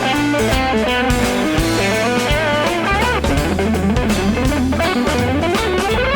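Electric guitar playing fast lead lines through a compressor pedal, over a backing track with bass and drum kit. Near the end a note slides upward.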